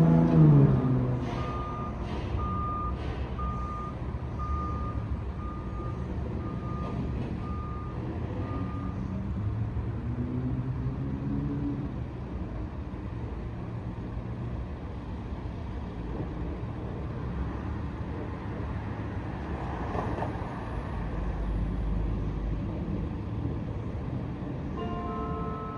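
A vehicle's backup alarm beeping at an even pace, a little faster than once a second, for the first eight seconds or so, over the steady low rumble of street traffic and truck engines. Church bells begin to chime right at the end.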